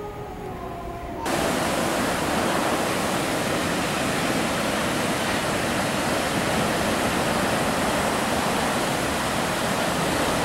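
Surf breaking on a rocky shore: a steady rushing noise that cuts in suddenly about a second in.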